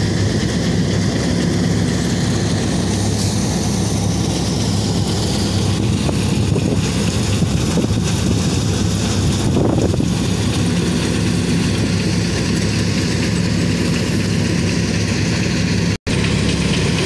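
Avtar paddy thresher running at a steady drone together with the engine that drives it, as paddy bundles are fed through the drum. The sound breaks off for an instant near the end.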